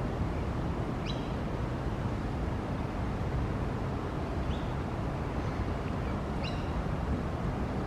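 Wind buffeting the microphone in a steady low rumble, with three short rising chirps from a bird spread across the few seconds.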